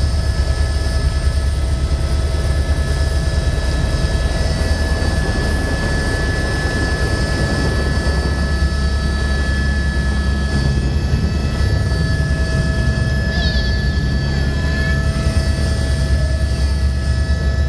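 Helicopter running, heard from inside the cabin: a fast, steady rotor beat under a steady high engine whine.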